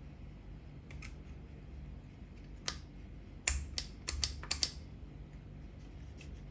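Sharp clicks and taps of hand tools and small metal parts on a motorcycle carburetor being dismantled: a few scattered clicks, then a quick run of about six near the middle.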